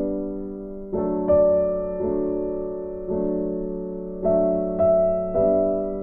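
Background piano music: soft chords struck about once a second, each ringing and fading before the next.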